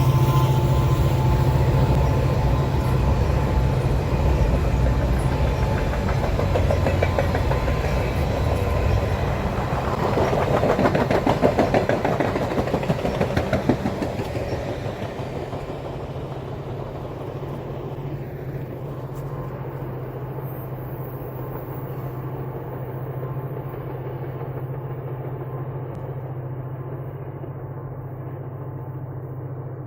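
Diesel train passing close by: the locomotive's engine gives a steady low drone and the wheels set up a rapid, even clatter that is loudest about a third of the way in. Then the train draws away and the sound fades to a quieter, steady low hum.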